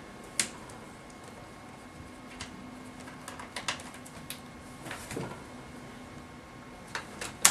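Scattered small clicks and taps of plastic laptop parts being handled and pried at the screen hinge, irregular, with the loudest click near the end.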